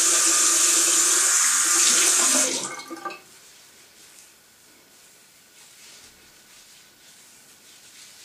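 Water spraying onto hair: a steady hiss that stops about two and a half seconds in.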